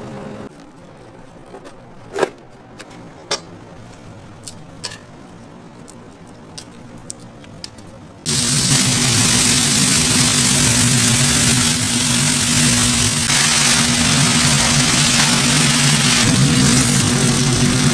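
Kitchen work sounds: a few light knocks while patties are handled by metal trays, then, about eight seconds in, a loud, steady hiss over a low hum that cuts in suddenly, typical of food frying on a hot griddle with kitchen machinery running.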